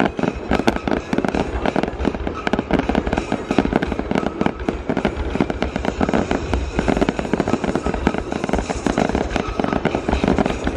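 A fireworks barrage going off continuously: a dense run of rapid bangs, many a second, overlapping without a break.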